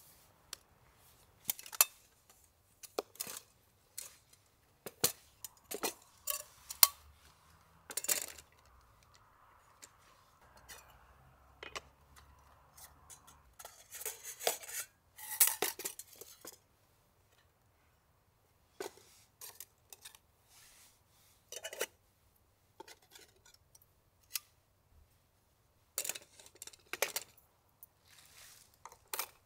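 Metal camp cookware and utensils clinking and knocking in scattered, irregular taps, with a denser run of clatter about halfway through.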